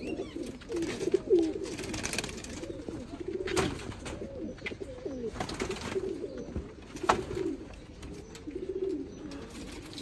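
Domestic pigeons cooing: low, wavering coos repeat throughout. Two sharp knocks come through, one about three and a half seconds in and another about seven seconds in.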